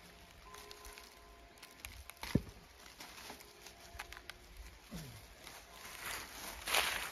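Faint rustling with scattered clicks and knocks, one sharper thud about two and a half seconds in, and louder rustling near the end.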